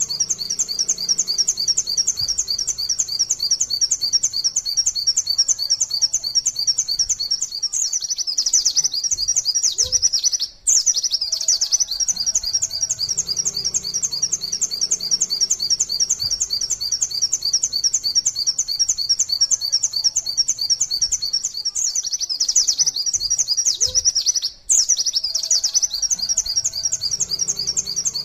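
White-eye (pleci) singing a long, unbroken 'nembak' run: a fast, steady stream of high, sharp 'wit wit tulit' notes. Two brief cut-outs interrupt it, about a third of the way in and again near the end.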